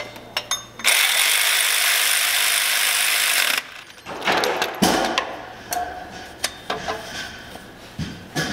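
Ratchet on a long socket extension running down the mounting nuts of a replacement power steering pump. It starts with a loud even hiss lasting almost three seconds, followed by scattered ratchet clicks and light metal knocks.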